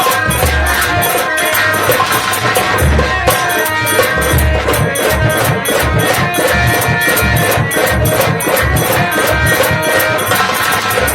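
Nautanki folk music played by the troupe's instrumental ensemble: a fast, even rhythm of jingling percussion and low drum strokes under held melody notes.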